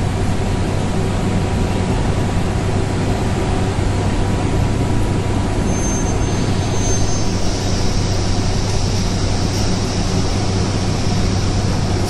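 Veneer press dryer running with its wire-mesh conveyor belt moving: steady, loud machine noise with a constant low hum. A thin high whine comes in briefly about six seconds in.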